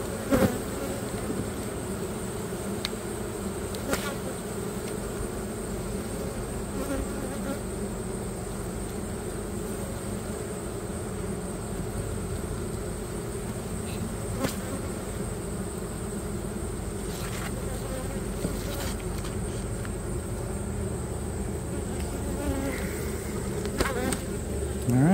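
Honey bee colony buzzing steadily over an open hive, a continuous low hum. A few short clicks break through it, the loudest about half a second in.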